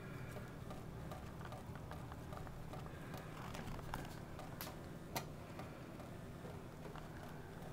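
Kittens lapping water from a kitchen sink faucet: faint, rapid ticks, with one sharper click about five seconds in.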